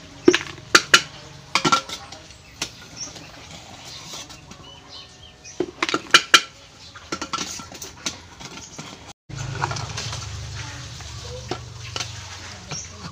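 Tin can and flat scraper clinking and scraping as ash is cleared out of a wood stove's firebox, with sharp knocks in clusters about a second in and again around six seconds. After a brief cutout, a steady low hum sits under the occasional clinks.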